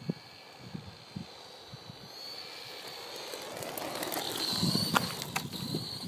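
Ansmann Mad Rat RC buggy's brushless electric motor whining under throttle as it comes closer over loose gravel, growing louder to a peak about five seconds in, with tyre noise on the gravel and a few sharp clicks near the end.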